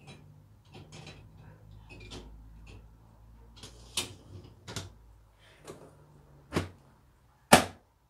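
Crockery and the wire rack of an Indesit dishwasher clicking and knocking as a cup is loaded into the top basket. The door is then pushed shut with a loud clunk near the end.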